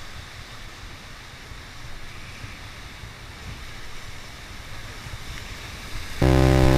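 Steady rushing noise of water and wind, with gusts of wind rumbling on the microphone. Near the end a loud, steady tone with many overtones starts suddenly.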